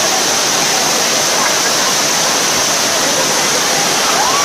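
Monsoon waterfall pouring onto rocks: a loud, steady rush of falling water, with faint shouting voices under it.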